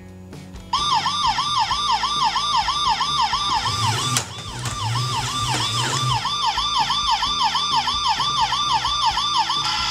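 Toy Robocar Poli police car's electronic siren, a fast rising-and-falling wail at about four cycles a second, starting about a second in and cutting off just before the end. Near the middle there is a sharp click and a brief low hum as the toy car rolls forward.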